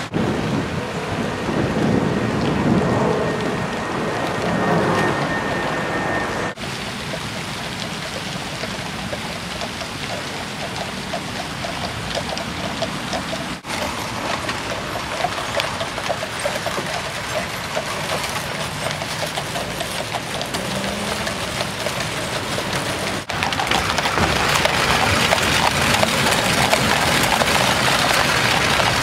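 Horse-drawn tramcar going past: the horses' hooves clattering on the road and the tram's iron wheels rumbling along the rails, under a dense steady hiss of noise that gets louder near the end.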